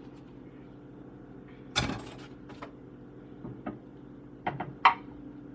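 A few knocks and clunks of kitchen things being handled as soup is got ready, the loudest about two seconds in and a few smaller ones later, over a steady low hum.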